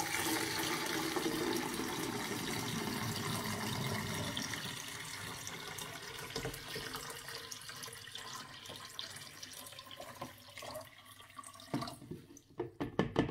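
Water pouring from a plastic jug into the empty plastic water tank of a baby-bottle washer: a steady splashing that gradually thins to a trickle and stops about twelve seconds in. A few light knocks follow near the end.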